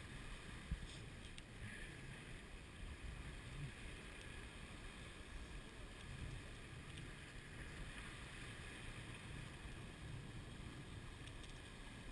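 Steady rush of water along the hull of a J30 sailboat moving fast under sail, with low wind rumble on the microphone. A single sharp knock sounds less than a second in.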